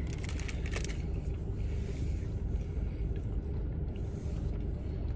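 Steady low rumble of a car idling, heard from inside the cabin, with a few soft clicks in the first second.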